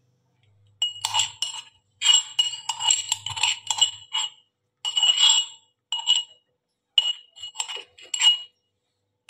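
Metal spoon scraping and clinking inside a metal mortar (khal-batta) to get a crushed spice paste out. The metallic scrapes and taps ring briefly and come in several short clusters with gaps between them.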